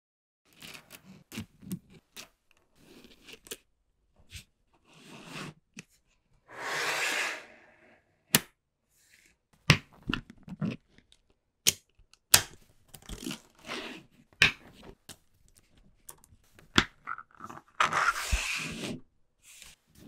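Small magnetic balls clicking and snapping together as they are handled and arranged into rows, a string of sharp separate clicks. Two longer rattling scrapes of many balls shifting at once come about seven and about eighteen seconds in.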